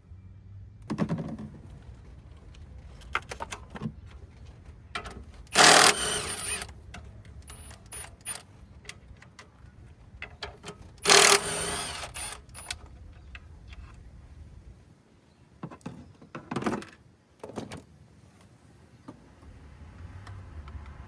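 Hand tools and metal parts clinking and knocking while an intercooler is unbolted and lifted out of a car's engine bay. There are two louder clatters, each about a second long, around six and eleven seconds in.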